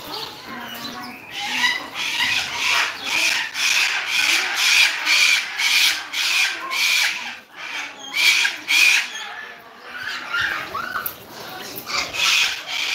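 Parakeets in an aviary calling: a harsh, raspy call repeated about twice a second for several seconds, then a few more calls near the end.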